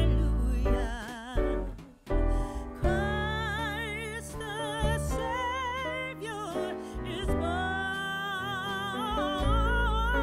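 Background music: a singer holding long wavering notes over an instrumental accompaniment with a steady bass.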